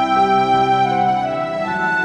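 Instrumental music with long held notes, no singing.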